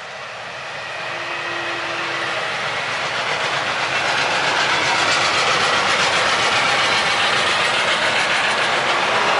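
Freight wagons loaded with logs rolling past on the rails: the rumble and rattle of wheels and wagons grows louder over the first few seconds, then holds steady.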